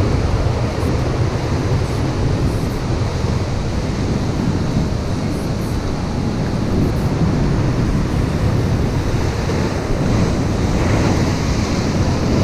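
Heavy ocean surf breaking and churning against the rocks, with wind buffeting the microphone. A wave crashes into spray near the end.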